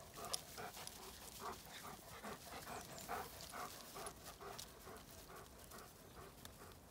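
A dog panting quickly, about three breaths a second, trailing off near the end.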